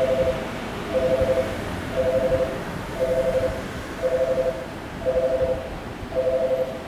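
Railway level-crossing warning bell ringing, a two-tone electronic ding repeating about once a second, which signals that a train is approaching. A low rumble of the approaching train lies underneath.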